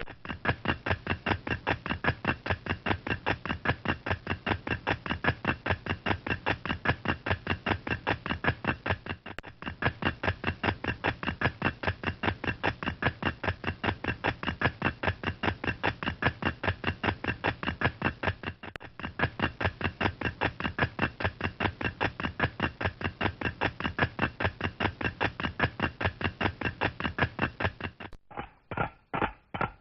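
Cartoon galloping sound effect: a fast, even clip-clop of hoofbeats, like a horse at full gallop, played as three takes of about nine seconds each with a short break between them. Near the end a different, slower rhythmic effect takes over.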